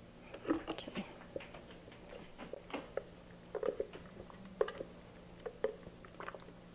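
Silicone spatula scraping a thick, freshly blended cheese mixture out of a plastic Vitamix blender jar into a plastic-wrap-lined loaf pan. Quiet, irregular scrapes, taps and wet squelches.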